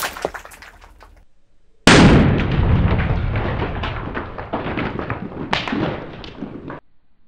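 Small explosive charge going off. The tail of one blast fades in the first second. About two seconds in, a second sharp blast hits, and its rumble and crackle, with a few sharp cracks, die away over about five seconds before cutting off.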